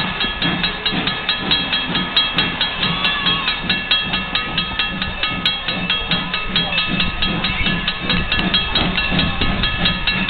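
Railroad grade crossing warning bell ringing in rapid, even strokes, with a low pulsing beneath, as the crossing gate comes down.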